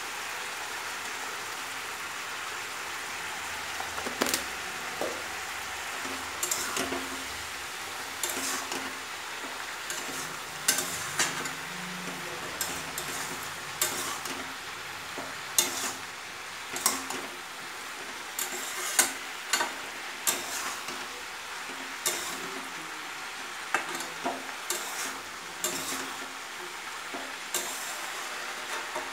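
Pieces of boiled green jackfruit frying in oil in a metal kadai, a steady sizzle. From about four seconds in, a metal spatula scrapes and clinks against the pan again and again as the pieces are stirred through with turmeric and salt.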